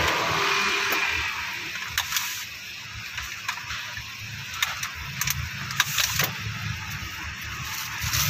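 A passing vehicle's noise fading away over the first two seconds, then scattered sharp clicks and taps over a low hum.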